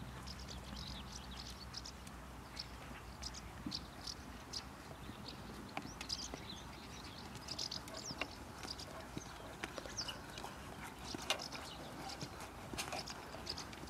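Faint outdoor ambience with scattered short high chirps and ticks over a low hiss, and a horse walking on sand at a distance.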